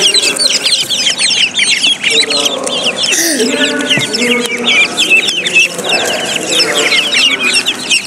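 A group of silkie and bantam chicks peeping nonstop, with many rapid, high, downward-falling chirps overlapping one another.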